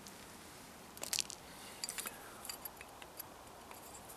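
Light metal clicks and taps from a hollow-handled survival knife being handled as its handle is worked apart, with a small cluster of clicks about a second in and scattered single ticks after.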